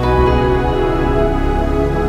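Background music, slow and ambient, with long held synthesizer-like tones and no speech.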